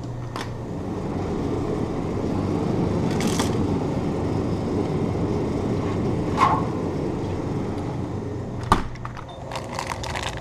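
Steady rushing hum from an open glass-door drinks cooler, with handling clicks as bottles are taken off the shelf. A sharp knock about nine seconds in, then crinkling of a snack packet near the end.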